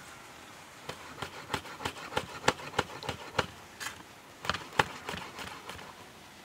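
Kitchen knife chopping green herbs on a wooden cutting board: a run of sharp chops, about two to three a second, with a brief pause in the middle.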